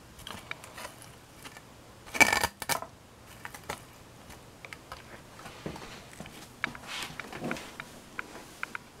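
Handling noise: scattered light clicks and knocks, with a louder clatter a little over two seconds in and more small ticks near the end.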